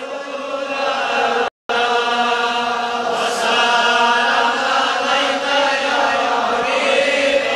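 Male voices chanting a Kashmiri naat together in long, held notes. The sound cuts out completely for a moment about one and a half seconds in.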